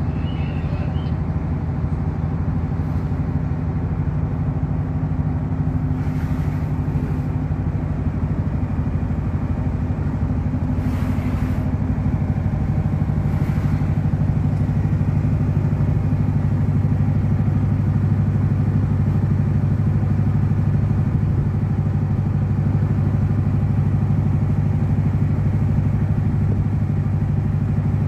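Boat engine running with a steady low drone, getting slightly louder about halfway through.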